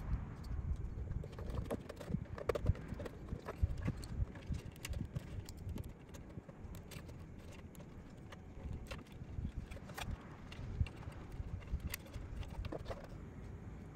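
Hard plastic display-base parts of a Perfect Grade Gundam model kit being handled and turned over, giving irregular clicks and knocks over a low handling rumble.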